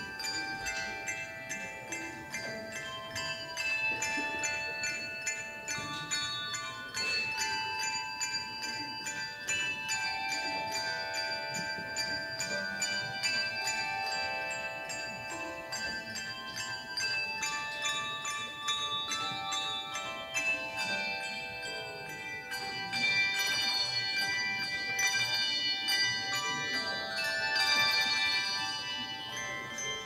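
Handbell choir ringing a tune: many tuned handbells struck in a steady rhythm, their tones overlapping and ringing on. The music grows louder in the last third.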